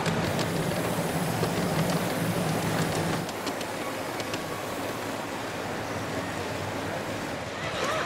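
G scale model freight train rolling past close by, its wheels running on the rails with a steady rumble. A low hum from the passing locomotive drops away about three seconds in, and a few light clicks follow as the cars roll over the track.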